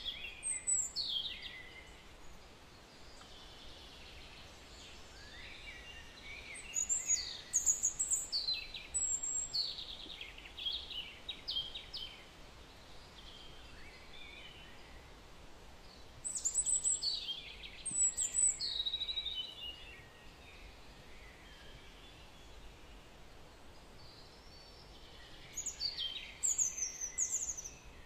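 A songbird singing in several bursts of quick, falling chirps, one every several seconds, over a steady faint background hiss.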